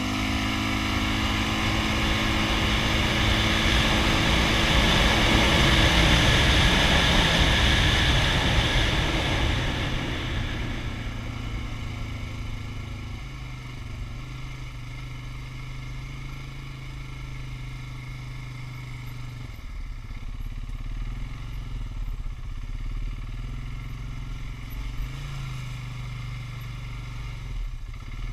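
Polaris Sportsman 570 ATV's single-cylinder four-stroke engine running while the quad rides a dirt trail. It is loud for the first ten seconds or so, then drops to a quieter, steady low running note.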